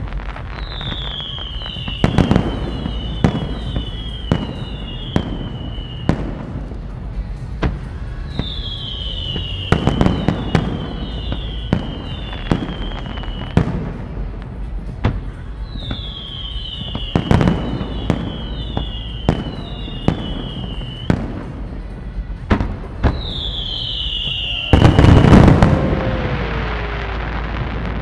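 Aerial fireworks shells bursting: sharp bangs at irregular intervals, with groups of high falling whistles every few seconds. Near the end comes the loudest and longest burst, followed by a fading crackle.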